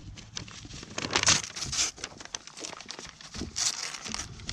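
A goat biting and tugging a sheet of paper, the paper crinkling and crumpling in several rustling bursts, the loudest about a second in.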